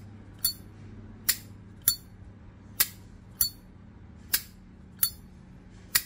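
Plain solid-brass 1992 Zippo Camel lighter's lid repeatedly flicked open and snapped shut: eight sharp metallic clinks a little under a second apart, each with a short bright ring.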